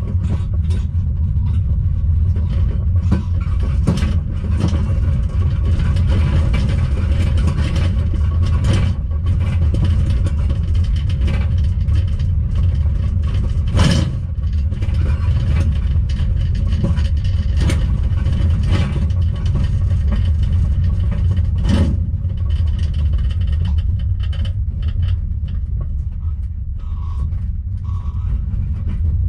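Steady low rumble of a caravan on the move, heard from inside its closed microwave oven. A few sharp knocks and rattles break through, the loudest about halfway through.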